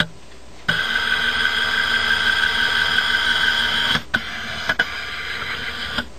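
Small electric motor whirring in stretches with a click at each start and stop, typical of a camcorder's zoom motor heard through the built-in microphone. It starts up under a second in, runs at a lower level from about four seconds in, and stops just before the end.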